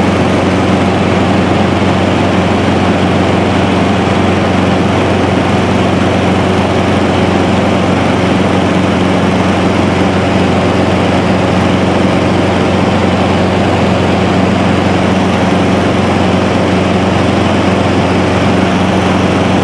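Light aircraft's engine droning loudly and steadily, heard from on board, its low pitch holding constant throughout.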